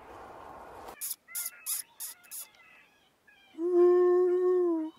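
Coyote calling: a few short, sharp yips, then one long, steady howl-like call of over a second.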